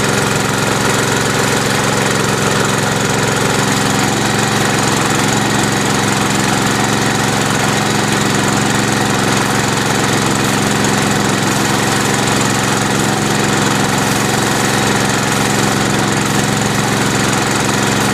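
Small engine running steadily at an even speed, the power unit of an automated sheep dip machine at work.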